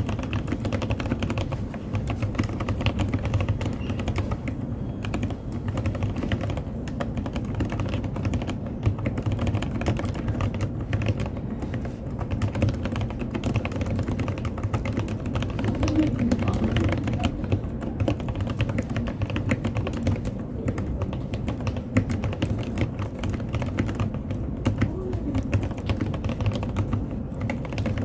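NJ68 mechanical keyboard with Heavy Industry keycaps and EG Oreo switches being typed on continuously: a fast, steady run of low-pitched key clacks.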